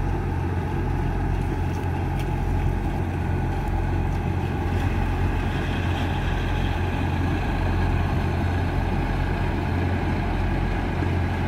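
Diesel engines of Kubota rice combine harvesters running steadily at a constant speed, a low, even drone with no revving.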